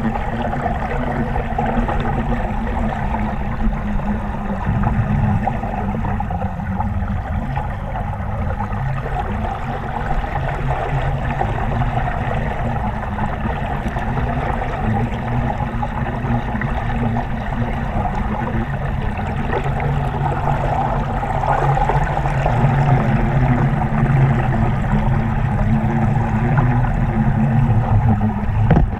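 River current rushing over a camera held underwater: a steady, muffled rush of water, heaviest in the low end, growing a little louder in the last third.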